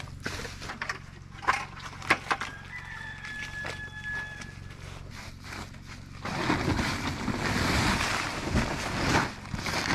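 Bare feet treading a wet cob mix of clay, sand and water on a plastic tarp, with scattered soft squelches and clicks. About six seconds in, a louder rustling and scraping starts as the tarp is pulled over the pile to turn the mix.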